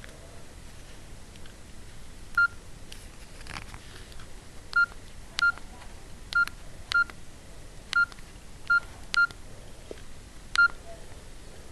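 Nokia 6124 classic's keypad tones: nine short beeps at one pitch, irregularly spaced as keys are pressed, each with a faint key click.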